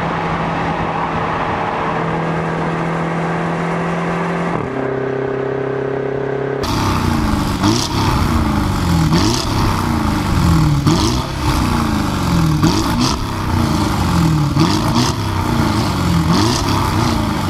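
Inside the cabin of a BMW X6M, its twin-turbo V8 pulls hard at a steady pitch, the note dropping once about five seconds in. Then, from about six and a half seconds in, a Porsche Cayenne Turbo's twin-turbo V8 with an Akrapovič exhaust is revved while standing, the revs rising and falling about once a second with sharp cracks in between.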